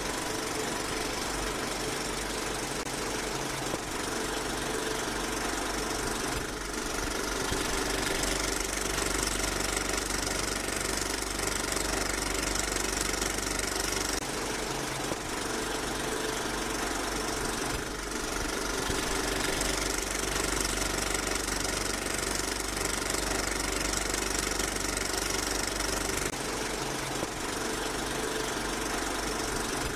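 8 mm film projector running, a steady whirring rattle of the film transport that carries on unbroken.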